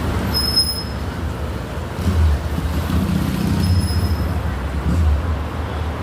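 Low, steady rumble of a bus engine, swelling a little now and then, with two brief high-pitched squeaks, one about half a second in and one near four seconds in.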